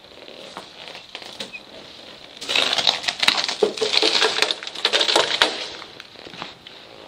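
Loud crunching and crackling of footsteps over debris, a dense run of small snaps lasting about three seconds that begins a couple of seconds in and fades away before the end.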